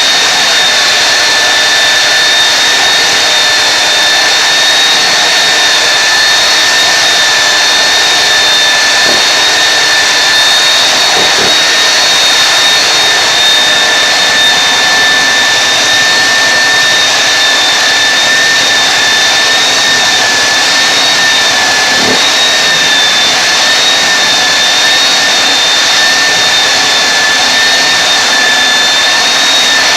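Belt floor sander running steadily with a high whine over a hiss, sanding old vinyl tile off the floor. There are two faint knocks, about 11 and 22 seconds in.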